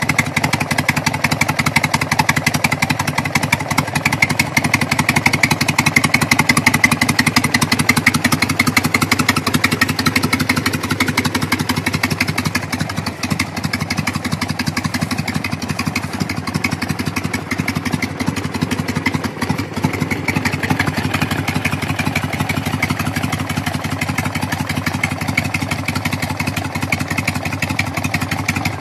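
A 1985 Harley-Davidson FXEF Fat Bob's 1340 cc Evolution V-twin idles steadily through its chrome exhaust pipes. It keeps an even beat of firing pulses.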